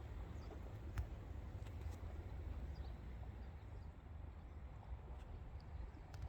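Outdoor ambience: a steady low rumble with faint high bird-like chirps and a sharp click about a second in.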